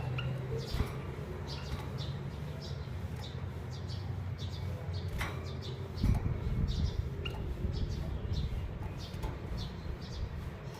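Small caged finches, a female canary and a male white-headed munia, give short chirps again and again. A steady low hum runs underneath, and there is a low thump about six seconds in.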